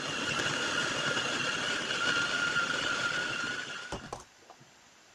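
Tefal electric mini chopper running with a steady high motor whine as it blends thick chickpea paste for hummus, then stopping just under four seconds in, followed by a couple of knocks as its motor head is lifted off the bowl.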